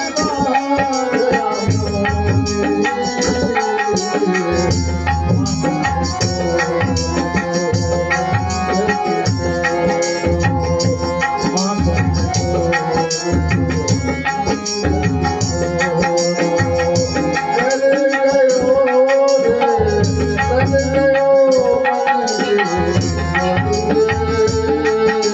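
Devotional bhajan music: hand drums beat a steady, regular rhythm under a sustained, bending melody.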